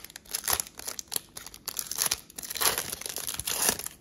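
Plastic trading-card pack wrapper crinkling and tearing as it is handled and opened by hand: a run of irregular crackles, busiest in the second half.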